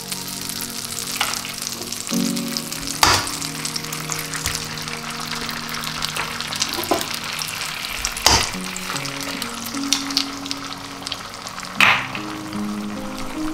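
Eggs sizzling as they fry in hot fat in a frying pan: a steady crackling hiss, broken three times by sharp taps as more eggs are cracked in. Soft background music with held notes plays underneath.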